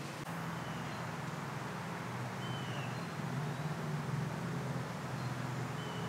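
Steady outdoor background with a low rumble, and short high bird chirps about two and a half seconds in and again near the end.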